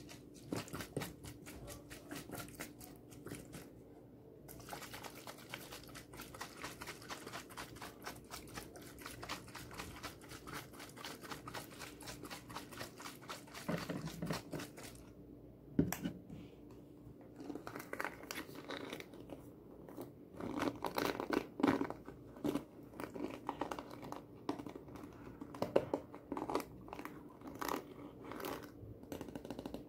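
Hands handling objects on a tabletop as ASMR triggers: fine, dense crackling and crinkling, with two soft knocks around the middle and then irregular bursts of crackly handling noise.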